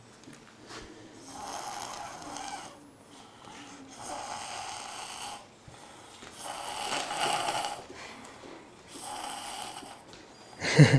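A napping boy snoring with slow, even breaths: four snores, each a little over a second long, about two and a half seconds apart. A brief, loud vocal sound comes at the very end.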